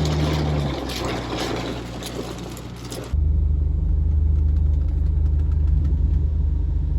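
Heavy rain drumming on a moving car, heard from inside the cabin over the low rumble of the engine and road. About three seconds in, the sound cuts abruptly to a steady low engine hum with the rain gone.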